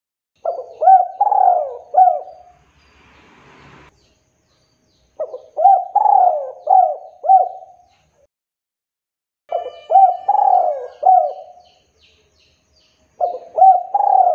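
Male spotted dove cooing in full song: four phrases of several quick, hooked coos each, one phrase about every four seconds. This is the male's advertising call, used as a lure to make other spotted doves answer.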